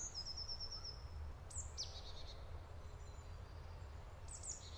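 Woodland songbirds calling: a short high trill, then a few high chirps that sweep downward, over a faint steady low rumble.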